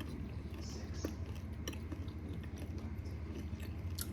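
A person chewing food, with scattered small clicks and crunches, over a steady low hum.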